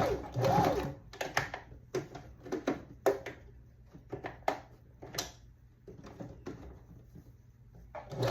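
Janome sewing machine stitching in short stop-and-start runs, forward and then in reverse: back-stitching to lock a hair weft track in place.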